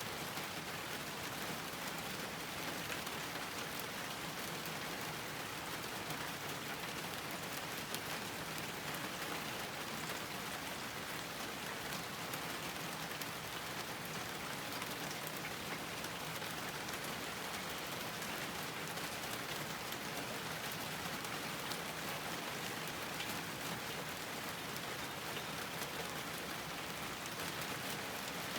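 Steady rain falling on a garden, an even hiss of many small drops pattering with no let-up.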